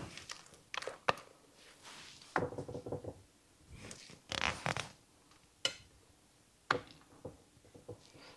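Thick cake batter being scooped and scraped into a cake pan, with scattered knocks and clicks of the utensil against the bowl and pan and a few short scrapes.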